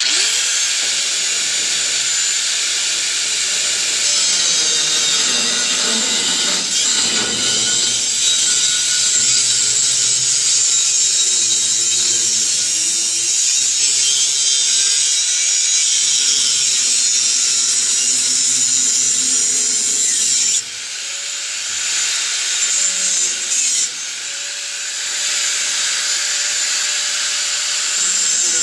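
Angle grinder with a cutoff wheel cutting through a steel exhaust tailpipe: a steady, loud, high grinding hiss over the motor's whine, which sags in pitch as the wheel bites into the pipe. A little after twenty seconds the cutting eases and the grinder runs quieter, its whine steady, for a few seconds before biting in again.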